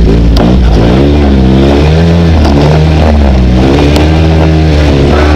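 Off-road vehicle engine revving hard, its pitch rising and falling several times, under a steady low engine drone.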